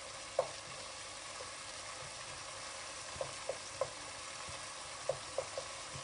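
Chopped tomatoes and onions frying on low heat in oil and ghee: a steady soft sizzle with a few small, sharp ticks scattered through it.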